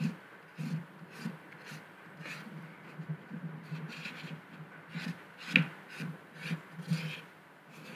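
Cotton swab rubbing and pressing a thin adhesive keyboard template down around the keys of a calculator: irregular soft taps and scratchy rubbing, with one sharper click about five and a half seconds in.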